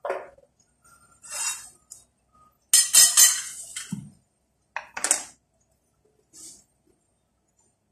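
Intermittent crackling bursts and clinks from a glass-lidded pan of potatoes frying on a gas stove, the loudest burst about three seconds in, with a dull knock just after it.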